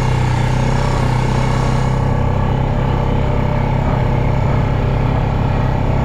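A motor vehicle's engine running at a steady speed, a low, even drone with no change in pitch.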